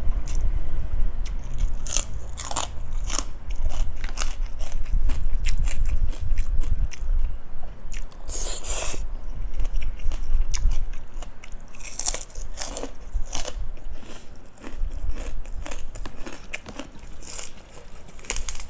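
Close-miked chewing and biting of crunchy food, a series of sharp crunches and wet mouth sounds with several louder crunching bites spread through.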